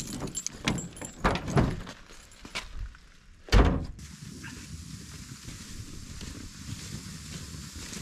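Car keys jangling and clicking at the back of a car, then a car door shutting with a single loud thunk about three and a half seconds in. A steady faint outdoor hiss follows.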